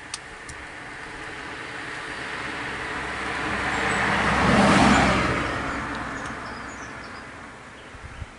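A car passing close by on the road: the tyre and engine noise swells to a peak about five seconds in, then fades away.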